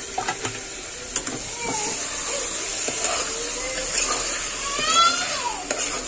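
Tomatoes and onion-spice masala sizzling in hot oil in a cooking pot, a steady hiss with a few clicks of the stirring spoon. About five seconds in, a young child lets out a high wailing cry that rises and falls.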